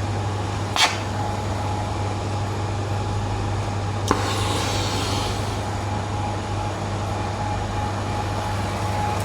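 Steady low machinery hum with a constant tone. There is a click about a second in, and a sharper click about four seconds in followed by a brief hiss.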